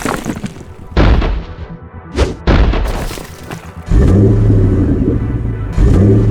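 Cartoon sound effects over background music: sudden booming crashes about one and two seconds in, then a loud low drone from about four seconds in that breaks off briefly and starts again.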